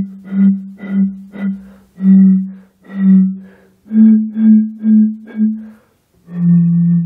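Green glass Beck's beer bottles blown across their mouths like a bottle organ, playing a simple tune of about a dozen breathy, hooting notes that step between a few pitches. It ends on one long, lower note.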